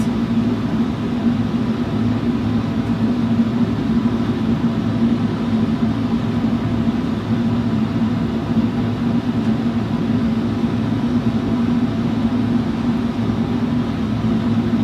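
Flameworking torch burning steadily: a constant roar with a low hum under it.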